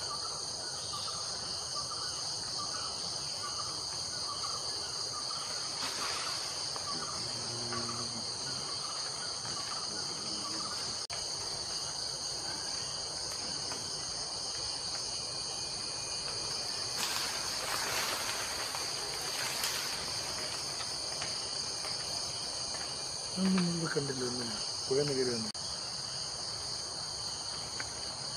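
Steady high-pitched chorus of forest insects such as crickets. A few short low voices come in near the end.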